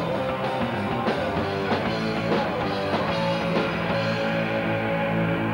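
Rock band playing: electric guitar and drums with a steady beat, the drum strokes dropping away near the end while a held note carries on.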